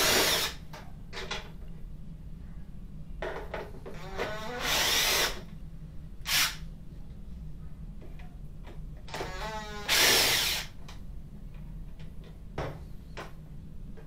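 Cordless drill-driver with a long Phillips bit running in short bursts, its motor spinning up each time, as it backs screws out of a washer's sheet-metal back panel. The longest runs come about four and ten seconds in, with a few quick blips between.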